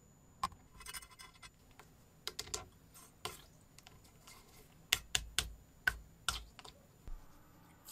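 Faint clicks and scratches of a plastic syringe being handled against a brass model engine while oil and coolant are pushed into it, with a run of about six sharp clicks in the second half.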